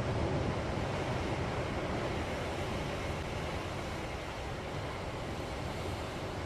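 Seaside ambience: waves washing on the shore and wind blowing on the microphone, a steady rushing noise with no separate events.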